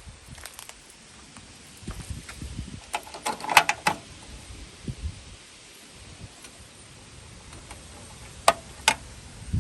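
Hands handling car parts and wiring: a short cluster of clicks and rattles, then two sharp clicks about half a second apart near the end.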